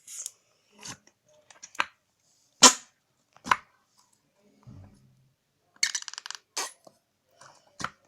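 Slime being pressed by hand into a glass jar, giving a string of short wet pops and clicks, with a low squelch about five seconds in and a longer crackling squelch just after: air forced out of the slime, the fart noise.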